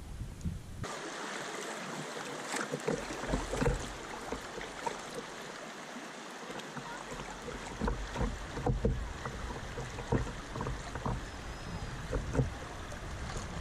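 River water rushing and splashing around a kayak moving downstream, with irregular small splashes against the hull. It starts abruptly about a second in.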